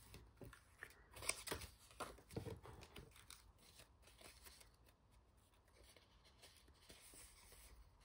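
Faint rustling and crinkling of paper die-cut doilies being handled and set aside, mostly in the first three seconds.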